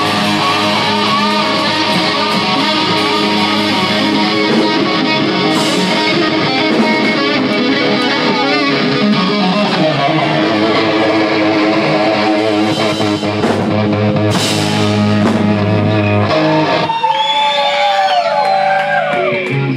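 Live hard rock band playing loud: distorted electric guitars over bass and drums. About three-quarters of the way through, the bass and drums drop out and a lone guitar carries on with bending, wavering notes.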